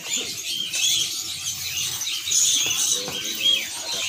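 Caged songbirds chirping and twittering, with short high calls repeating over and over.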